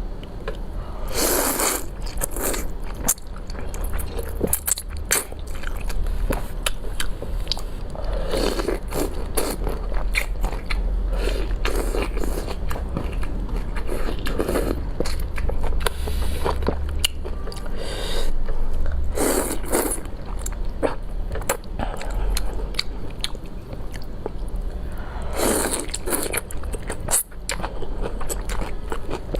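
Close-miked mouth sounds of a person eating: biting and chewing with many small wet clicks, and a few louder bursts spread across the stretch.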